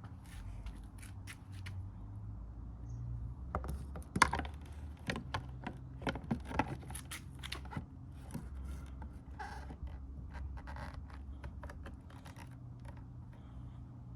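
Scraping, rubbing and a run of small clicks from objects being handled, with a steady low hum underneath; the busiest handling comes in the middle.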